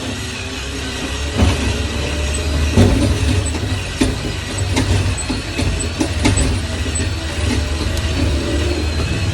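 Drill running slowly, boring up through a broken, rusted rear shock bolt, a steady low hum with scattered clicks and knocks.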